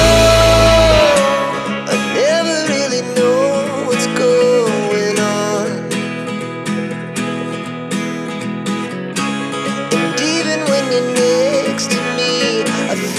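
Background music: a song with a wavering sung melody over guitar and steady chords; the heavy bass drops out about a second in.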